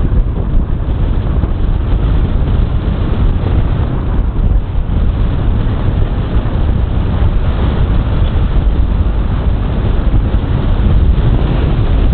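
Wind buffeting the microphone on the open bow of a moving CityCat catamaran ferry, a steady low rumble, mixed with the rush of water past the hull.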